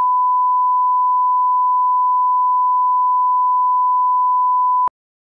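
Steady 1 kHz line-up test tone, a single pure beep played with colour bars as the reference level for the programme, that cuts off suddenly near the end.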